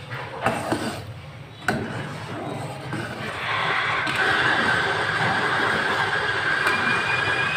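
A few knocks of a metal spoon against a frying pan, then from about three seconds in a steady sizzling hiss from a frothy milky mixture cooking in the pan.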